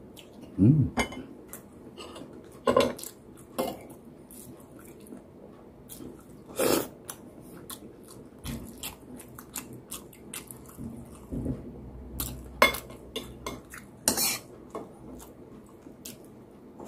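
Metal spoon and fork clinking and scraping against ceramic plates and a bowl during a meal, scattered clicks every second or two with a few louder knocks, along with close-up chewing. A short low hum about a second in.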